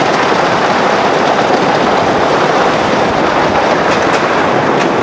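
Wooden roller coaster train running along its wooden track, heard from aboard the train: a loud, steady rattling rumble, with a few sharp clicks near the end.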